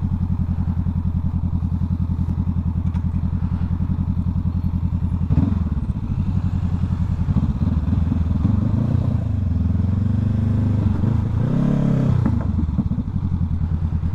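Honda CBR500R's parallel-twin engine running at low revs while the bike is eased along slowly, its pitch rising and falling a few times past the middle. A single thump about five seconds in.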